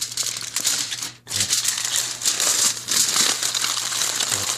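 Sheet of aluminium foil being folded and crinkled by hand, a near-continuous crackle with a brief pause about a second in.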